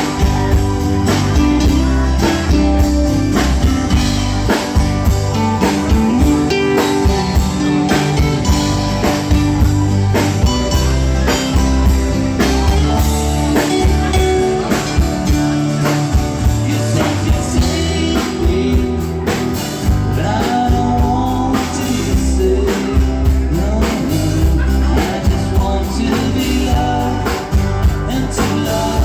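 Live rock band playing an instrumental passage: electric guitar carrying the melody over bass and a steady drum-kit beat.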